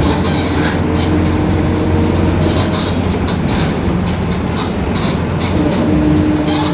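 Inside a moving Mercedes-Benz OF-1721 BlueTec 5 city bus: a continuous low drivetrain and road rumble with a steady mid-pitched hum that fades in and out, typical of the growling rear differential, and frequent short rattles from the body.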